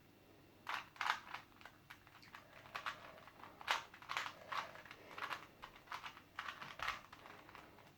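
A Rubik's Cube being twisted by hand: quick, irregular clicks and clacks of its plastic layers turning.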